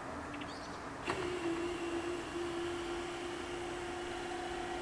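Electric drive of a level-crossing barrier switching on with a click and running with a steady motor hum as the barrier arms lower.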